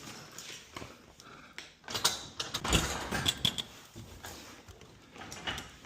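Irregular knocks, clicks and light metallic clinks of garage-door hardware being handled and fitted, busiest in the middle.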